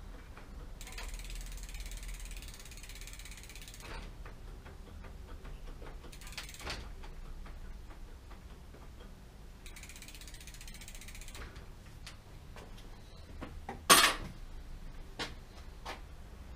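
Bicycle rear-hub freewheel ticking fast as the rear wheel is spun by hand and coasts, checked for running free after brake work. Two spells of hiss come in along the way, and a single sharp knock near the end is the loudest sound.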